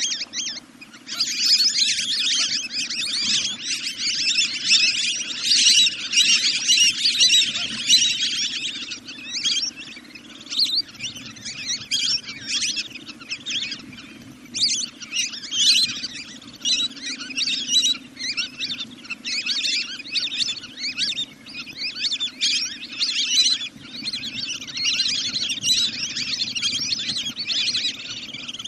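Bird call recording played as a lure for night decoy calling: dense, rapid high-pitched chirping calls that come in runs with brief pauses, over a steady low hum.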